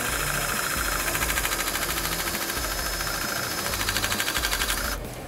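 Pro Spot PR-5 battery-powered hydraulic rivet gun running under load with a fast pulsing whir as it drives a calibration punch through an aluminium panel. It stops abruptly about five seconds in.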